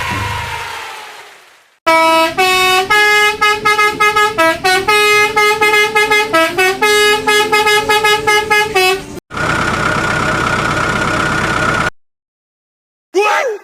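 A cartoon vehicle horn honking a quick tune of short, stepping notes for about seven seconds, followed by about three seconds of steady hissing noise and, near the end, a brief sliding sound effect.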